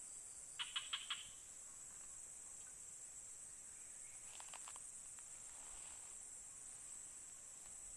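Steady high-pitched chorus of insects such as crickets, pulsing without a break. Twice, about a second in and again about four and a half seconds in, another animal gives a short run of four or five quick chirps.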